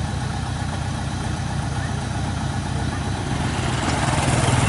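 Heavy farm machine's engine running steadily with a low, even chug, growing louder near the end as it revs up during a mud recovery tow.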